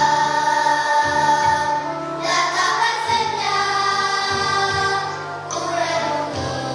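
A children's choir singing with a bamboo angklung ensemble accompanying, the notes held and changing every second or so.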